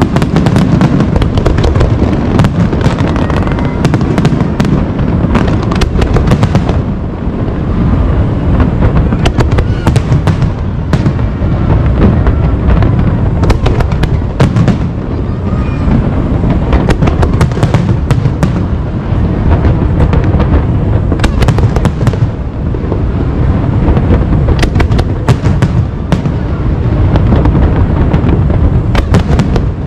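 Fireworks display: aerial shells bursting in a steady barrage, a continuous deep rumble of booms with many sharp cracks throughout.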